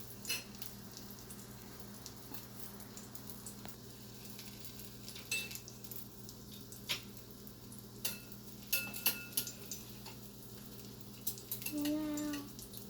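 Spam and egg frying quietly in a hot pan, with a utensil clicking against the pan several times over a steady low hum. A short pitched sound comes near the end.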